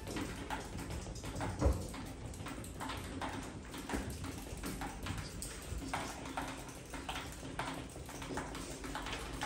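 Classroom room tone: scattered small taps and knocks of pens and desks over a steady low hum, with one louder knock about a second and a half in and faint talk later on.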